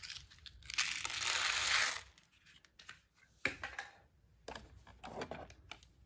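Small hard Nerds candies poured into a plastic robot-vacuum dustbin, rattling for about a second, followed by several sharp plastic clicks as the bin is handled.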